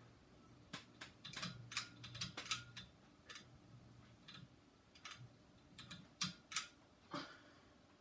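Encon vintage ceiling fan running with a faint low hum, under irregular light clicks and ticks, sometimes several a second.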